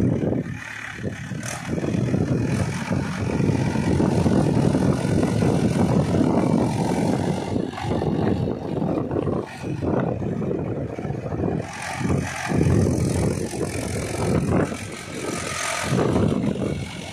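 Mahindra 475 DI tractor's four-cylinder diesel engine working under load as the tractor on cage wheels climbs out of a flooded paddy field; the engine note swells and dips several times.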